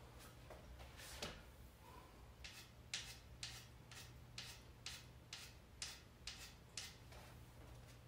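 Chalk being scraped onto a pool cue tip in a run of about ten short, soft strokes, roughly two a second, over a faint low room hum.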